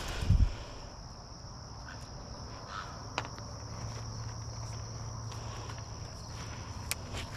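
Steady high-pitched chirring of insects, with a low thump about half a second in and a few brief sharp clicks.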